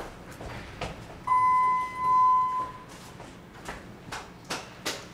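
Elevator's electronic signal beep: one steady tone held for about a second and a half, starting about a second in. A few sharp clicks follow later.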